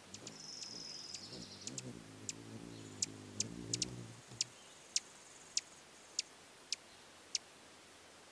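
Low hum of a female rufous hummingbird's wings as she hovers in to her nest, stopping about four seconds in. A series of sharp ticks follows, falling into an even beat a little over half a second apart near the end.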